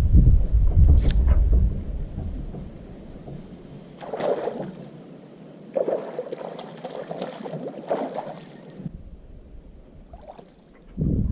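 A fishing boat on the water: a low rumble for the first two seconds, then quieter stretches of water and handling noise.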